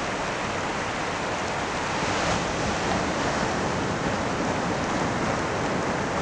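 Surf: small waves breaking and washing up a sandy beach, a steady rushing hiss that swells a little about two seconds in.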